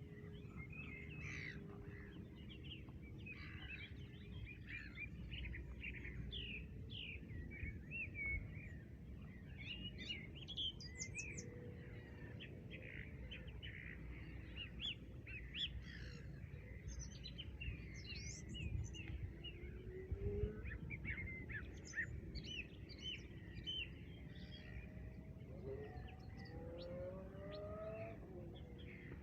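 Many small songbirds chirping and singing in an overlapping chorus, with a few lower sliding calls near the end. A steady low rumble lies underneath.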